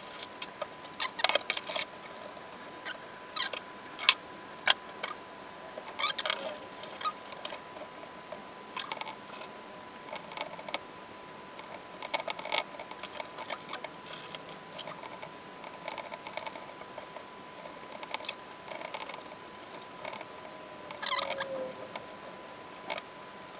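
Plastic cable drag chain being handled and fitted: its links click and rattle in irregular bursts, busiest in the first few seconds and again near the end.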